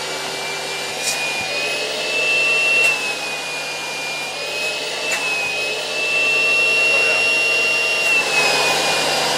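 WD Convac 900 AL90E ESD-safe service vacuum cleaner running at full suction: a steady loud motor whine over airflow rush. The pitch rises and dips slightly as the hose end is handled.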